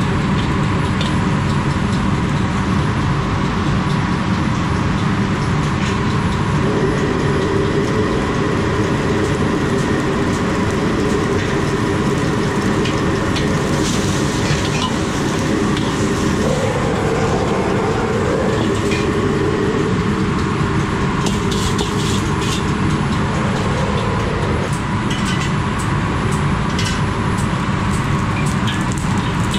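Commercial wok range running with a steady loud rush, with water boiling in a carbon-steel wok as diced tomatoes are blanched. In the second half, a metal ladle and a bamboo wok brush clink and scrape against the wok.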